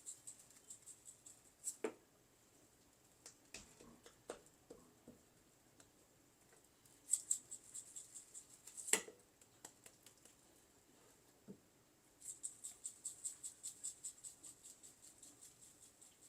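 Dry steak seasoning rattling in a shaker, shaken in quick, even strokes onto a tomahawk steak in two runs, the second starting about three quarters of the way in, with a few scattered light taps and knocks between them.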